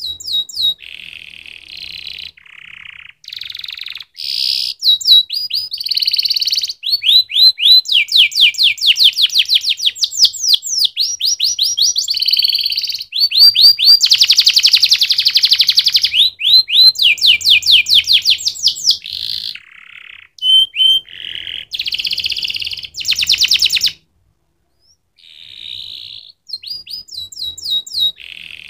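Domestic canary singing a long song of rapid trills and fast runs of repeated notes, in phrases that change every second or two, with a short break about four-fifths of the way through.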